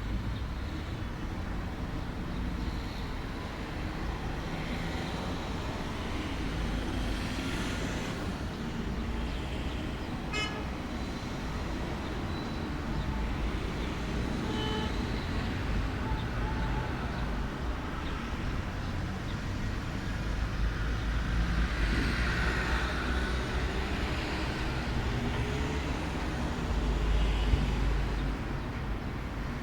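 Steady outdoor background noise with a low rumble. There is a short toot about ten seconds in and another brief tone near fifteen seconds.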